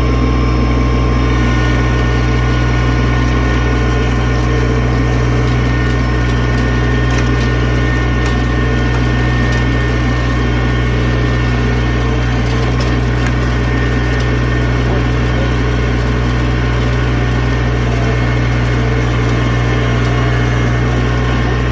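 Compact tractor engine running steadily at constant speed while pulling a disc harrow through soil.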